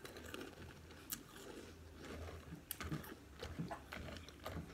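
Faint chewing of a mouthful of cinnamon Pop-Tarts cereal in milk, with soft crunches and scattered small clicks.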